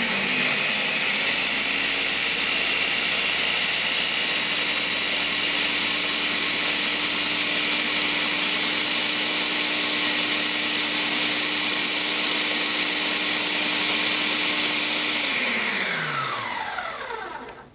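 Ninja countertop blender running steadily at full speed, blending ice cream and milk into a milkshake. Near the end it is switched off and the motor winds down with a falling whine.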